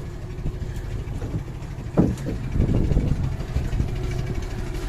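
Motorboat engine running steadily with a low rumble, and a single sharp knock about two seconds in.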